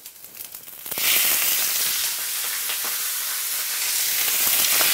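Baby octopuses dropped into hot olive oil in a frying pan: after a faint crackle of heating oil, a loud, steady sizzle starts suddenly about a second in and keeps going.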